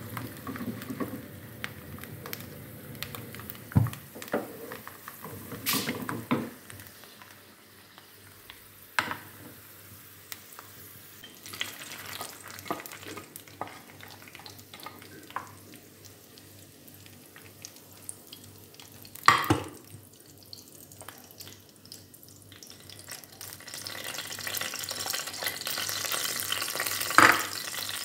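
Almonds frying in hot oil in a small pan, a crackling sizzle, with the knocks and scrapes of a silicone spatula stirring them and scraping them out of the pan. The sizzling grows louder near the end.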